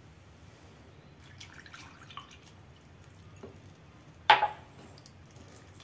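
A wooden spoon stirring milk into mashed potatoes in a glass bowl: soft, wet squelching and dripping sounds, with one sharp, loud knock about four seconds in.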